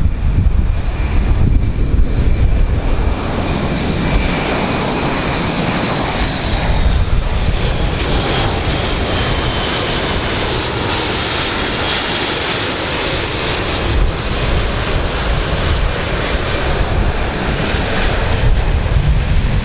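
Airbus A400M's four turboprop engines and propellers droning as the aircraft flies past low, with a high whine that slides slowly down in pitch midway.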